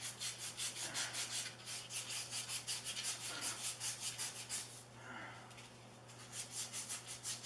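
Emery cloth rubbed rapidly back and forth around the tiller's steel tine shaft, a fast rhythmic rasping of several strokes a second. The strokes ease off briefly about five seconds in, then start again. The shaft is being polished clean where the new tine oil seal will sit.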